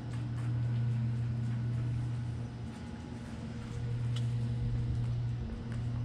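A steady low mechanical hum that fades down and swells back up twice, with a few faint ticks over it.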